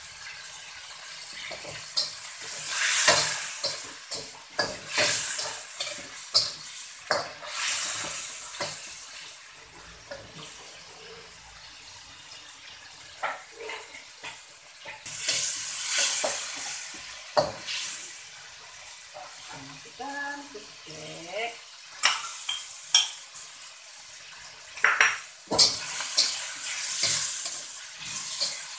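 Metal spatula scraping and clanking against a steel wok while sliced meat fries in hot oil, with stretches of loud sizzling as the food is stirred.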